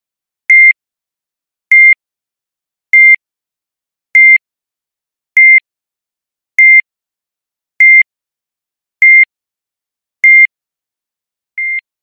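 Heart monitor beeping: short, single-pitched high beeps at an even, medium rate of about one every 1.2 seconds, each beep marking a steady heartbeat. Ten beeps, the last one quieter.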